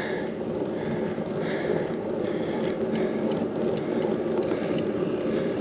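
Steady low rumble of riding a bicycle along a road: wind and road noise on the microphone.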